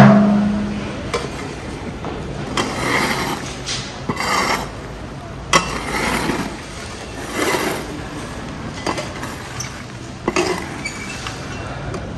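A metal pot clangs at the start and rings out briefly. Then a long-handled metal scoop rakes lumps of charcoal and ash across a steel grill trough, in a series of short scrapes and clinks about a second apart.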